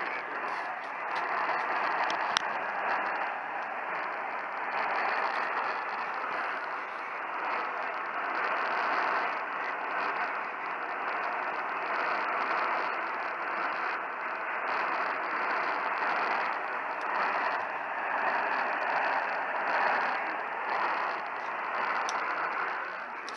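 Radio receiver static: a steady hiss that swells and fades, with a sharp click about two seconds in and another near the end, as a weak broadcast signal is tuned in.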